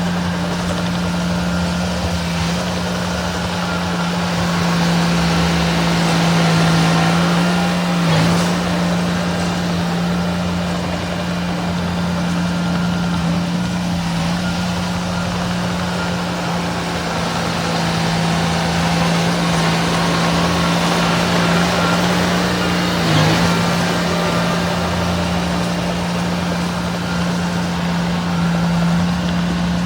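Heavy earthmoving machine's diesel engine running steadily under load. Two short knocks stand out, one about eight seconds in and another about twenty-three seconds in.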